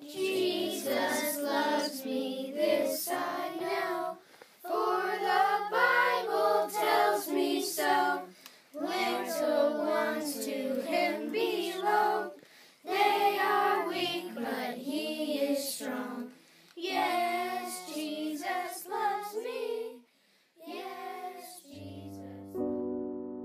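A children's choir singing in phrases, with short breaks between them. Near the end the singing stops and piano playing begins.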